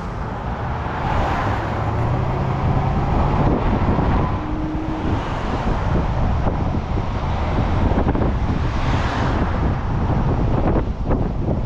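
1974 Ford Gran Torino Elite's V8 running as the car drives along, with steady road and tyre rumble and wind rushing over the microphone.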